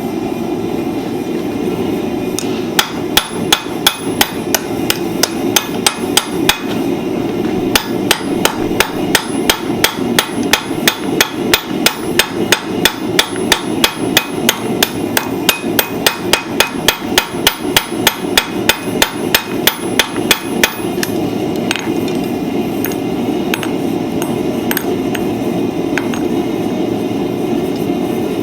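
Hand hammer striking hot steel on an anvil, forging tongs: sharp ringing blows at about two a second in two long runs with a short pause between, then a few scattered blows near the end, over a steady rushing hum.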